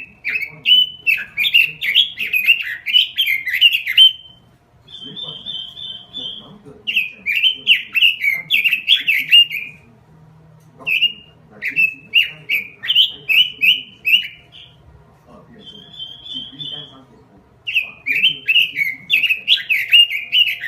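Pekin robin (red-billed leiothrix) singing: four phrases of rapid, warbling notes of a few seconds each, separated by short pauses in which a brief buzzy trill is heard.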